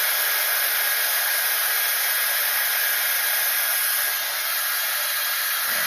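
High-speed 1600-watt hair dryer with a brushless motor running with a concentrator nozzle: a steady rushing hiss of air with a faint high whine, dipping slightly in level about four seconds in.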